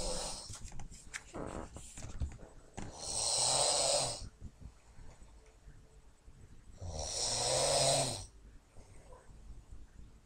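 A woman snoring: two long snores about four seconds apart, each a low rasping drone with a strong hiss, with quieter breathing between them.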